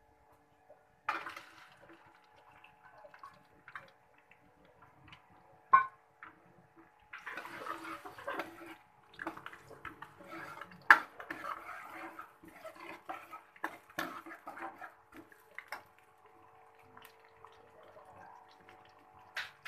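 Sliced onions frying in hot oil in a metal pot, a crackling sizzle that is busiest from about seven to fifteen seconds in and then settles to a faint steady fry. Sharp clinks and knocks of a metal ladle against the pot come several times.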